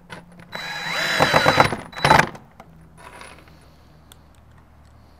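Cordless drill driving a screw into the wooden frame: the motor spins up in one run of about a second and a half, then gives one more short burst.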